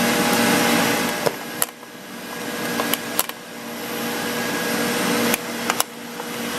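Steady rushing machine noise with a low hum, which dips twice and swells back, under several sharp metallic clicks of crimp terminals being slid onto a panel's ground terminal.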